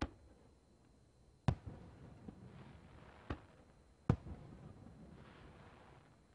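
Japanese aerial firework shells bursting overhead: four sharp booms, one at the start and then about 1.5, 3.3 and 4 seconds in, each followed by a short rumbling echo. A soft hiss is heard between them.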